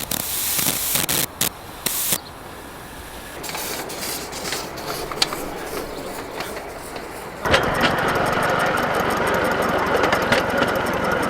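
Miniature live-steam locomotive running, with a fast mechanical beat and a few sharp clicks early. About seven and a half seconds in, a loud steady hiss of steam starts: the safety valves lifting.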